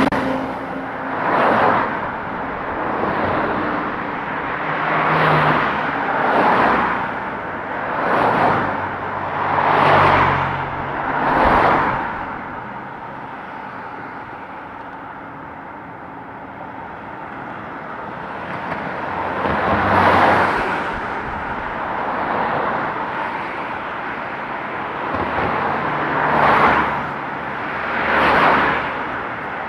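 Street traffic: cars passing one after another, each swelling and fading away, about a dozen in all, with a lull of several seconds in the middle when the road goes quieter.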